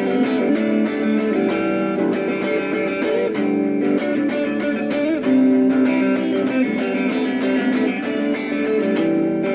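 Instrumental guitar music: plucked and strummed guitar notes ringing over one another at a steady level.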